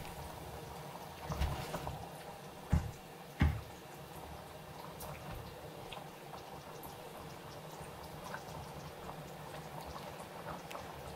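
Metal ladle scooping sauce from a cooking pot and pouring it over a bowl of food, with liquid pouring and dripping. A few knocks of the ladle against the pot come in the first three and a half seconds.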